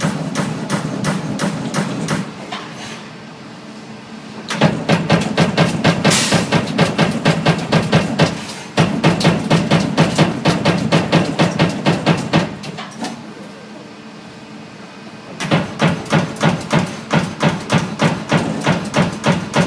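Amada Vipros 358 King CNC turret punch press punching sheet metal in rapid runs of about four hits a second. Twice the hits stop for two to three seconds and only the steady running noise of the machine remains.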